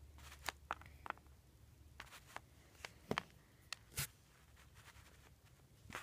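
Fingers handling small pieces of polymer clay on a paper plate: a dozen or so light, irregular taps and scrapes, clustered in the first half.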